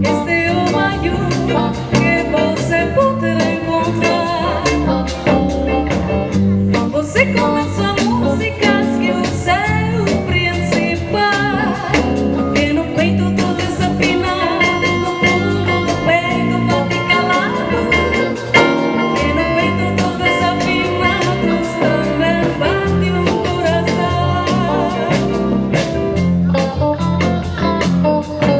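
Live band music: a woman singing lead into a microphone over a drum kit and backing instruments, with steady drum and cymbal strokes.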